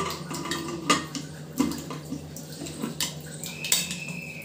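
Aluminium pressure cooker lid being fitted and turned shut: a series of sharp metal clinks and knocks, the loudest about a second in. A brief high tone sounds near the end as the lid is turned and the handles are brought together.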